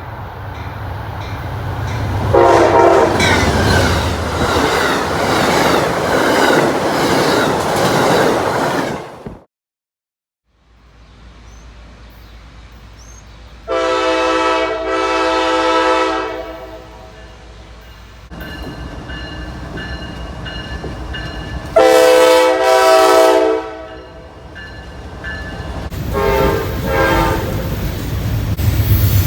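Train horns from several cut-together recordings. First, a horn sounds for several seconds over the rumble and clatter of a passing train. After a brief cut to silence come a long horn blast, a short blast and a fainter one, each holding steady.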